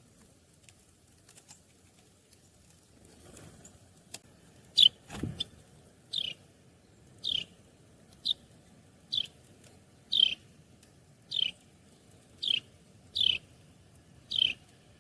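A small bird chirping over and over, about one short downward-slurred chirp a second, starting about five seconds in. Before that there are only faint ticks and taps.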